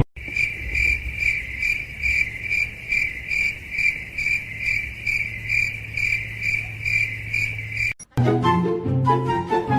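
Cricket chirping, a steady run of about three chirps a second over a low hum, cut off abruptly about eight seconds in, after which music plays.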